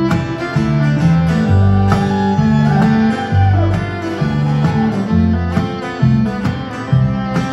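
Live acoustic string band of fiddle, acoustic guitar and upright bass playing an instrumental break with no singing. The bass steps through plucked notes under a sliding fiddle line.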